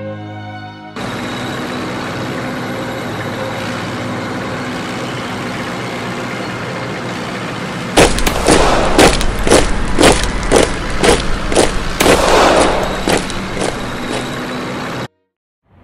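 Gunfire sound effect: after a steady rushing background, a rapid volley of sharp shots starts suddenly about halfway through, about three a second over a low rumble, and cuts off abruptly near the end.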